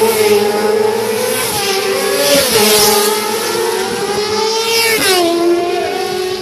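Racing motorcycle engines running hard at high revs, the pitch climbing and dropping repeatedly as they accelerate and shift gears, then falling steeply about five seconds in.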